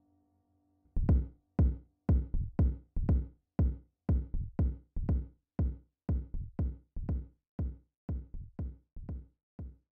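Techno-electro music: a drum-machine kick pattern of deep thumps, about two a second with extra off-beat hits, starting about a second in after near silence.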